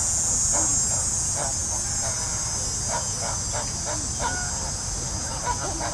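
Steady, high-pitched chorus of crickets or similar insects. Several short, distant calls break through it over the last few seconds.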